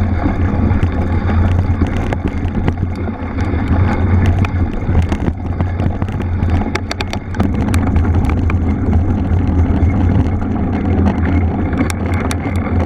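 Mountain bike rolling over rough off-road ground: a steady low rumble of tyre and wind noise with frequent sharp rattling clicks from the bike.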